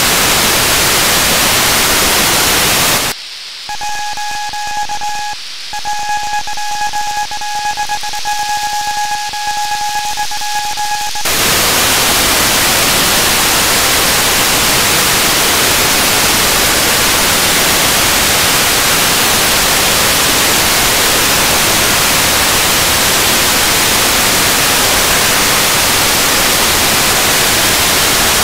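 Radio receiver static from a UHF satellite downlink. From about three seconds in to about eleven seconds the hiss drops away as the Athenoxat-1 cubesat's signal comes in, carrying a steady high tone that breaks off once briefly. Then the full hiss returns.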